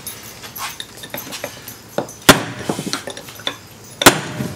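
Metal tapping and clinking: a steel punch being knocked against an old piston's snug wrist pin to drive it out, with two sharp clinks, one about two seconds in and one near the end, among lighter taps and rattles of metal on metal.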